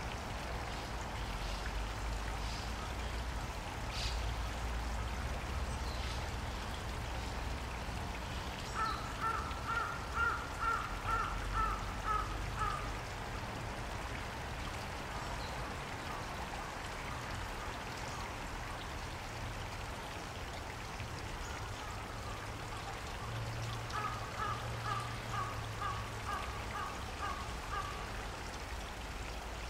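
Steady rush of flowing water. A bird calls twice over it, each time a quick run of about ten repeated notes.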